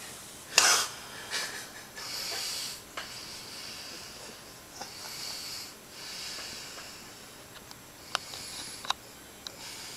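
Hissy snoring breaths of a sleeping man, a long breath every few seconds, with one loud short burst about half a second in.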